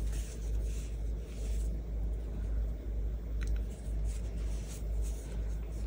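Soft rustling of cotton yarn drawn through crocheted fabric as a tapestry needle is passed back and forth, with a couple of faint ticks about three and a half seconds in, over a steady low hum.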